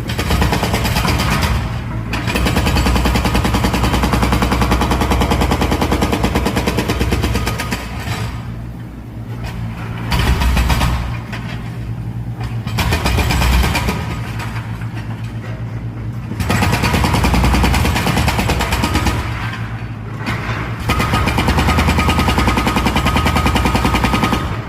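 Hydraulic breaker on a mini excavator hammering rapidly at a masonry parapet, in several long bursts with short lulls between them, over the steady hum of the machine's engine.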